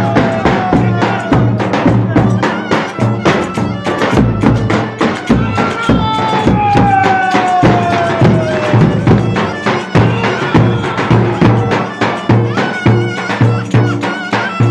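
Turkish folk dance music played by a band: a reed wind melody with long falling pitch glides over a steady, even drum beat.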